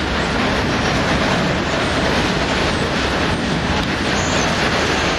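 Steady rumble and wheel noise of a train rolling through a railway station, with a faint clickety-clack over the rail joints.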